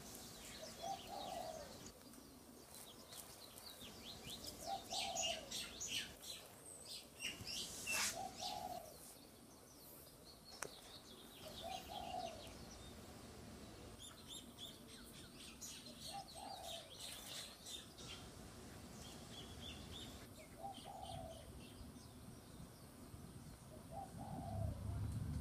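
Zebra doves cooing, a short call repeated about every four seconds, while other small birds chirp in quicker, higher calls over it.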